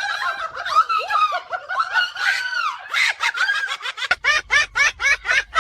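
High-pitched cartoonish voice squealing with a wavering pitch, then from about four seconds in breaking into a fast cackling laugh of about six or seven beats a second.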